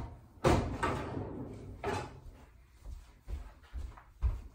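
A few scattered knocks and rustles from groceries and reusable shopping bags being handled, the loudest about half a second in and a low thump near the end.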